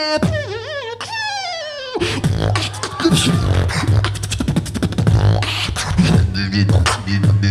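Beatboxer performing into a handheld microphone: for about two seconds a wobbling, gliding vocal tone, then a deep humming bass line under fast clicks and snare sounds.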